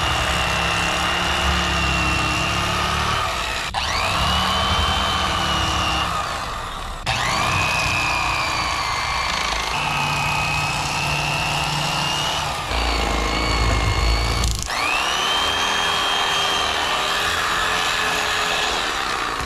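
Electric fillet knife cutting a fillet from a black drum. The motor whine stops and starts several times, spinning up in pitch at each start and dipping as the blades bite.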